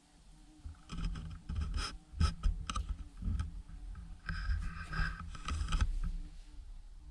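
Irregular knocking, scraping and creaking of wood, with several sharp clicks, for about five seconds.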